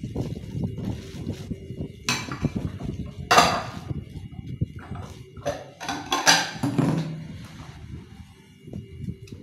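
Ceramic dishes being scrubbed with a soapy sponge in a stainless steel sink: continuous rubbing and handling noise, with a few louder clatters of dishes knocking together about two, three and six seconds in.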